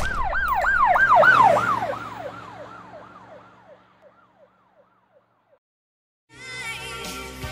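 Siren sound effect: a fast rising-and-falling yelp, about three sweeps a second, fading out over the first few seconds. After a short silence, music begins near the end.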